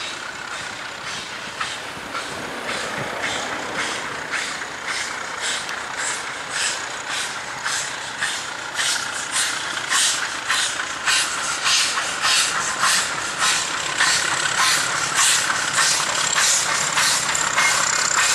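WAGR W-class 4-8-2 steam locomotive W945 working a passenger train, its exhaust beating at about two chuffs a second over a steady hiss. The beats grow louder as the train draws nearer.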